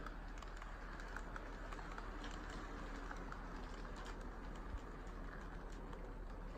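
KATO N-gauge model train running on the layout track: a faint steady hiss with small irregular clicks of the wheels over the rail joints, and one soft knock about two-thirds of the way through.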